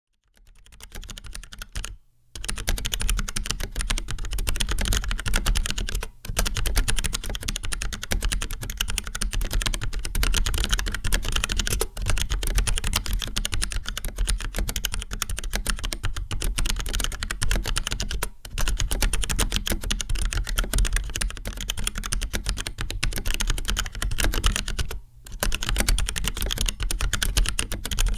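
Fast continuous typing on a mechanical keyboard with Outemu Black linear switches, each keystroke a dense clack, pausing briefly a few times. The switches sound like genuine Cherry MX Blacks.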